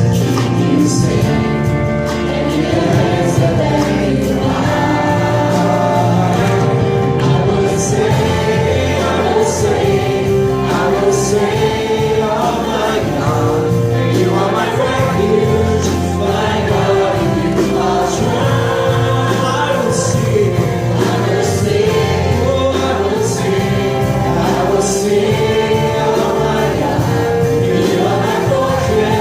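Group of voices singing a gospel worship song with instrumental accompaniment, at a steady full level throughout.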